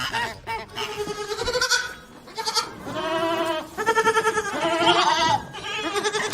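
Bleating livestock: a run of wavering bleats, one after another, with short gaps between them.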